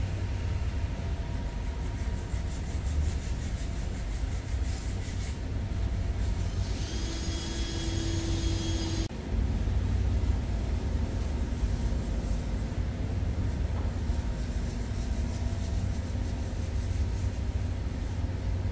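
Steady low rumble of workshop background noise, with a brief hiss about seven seconds in that cuts off suddenly two seconds later.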